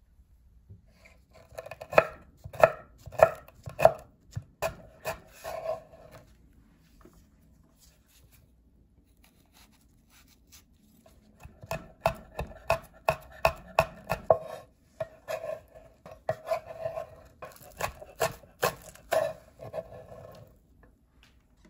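Kitchen knife chopping vegetables on a wooden cutting board: quick, sharp strikes in two bouts with a pause of several seconds between them. The later strikes are on green onions.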